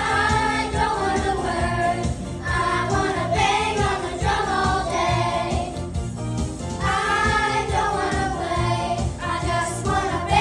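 A song playing: voices singing together over a steady drum beat.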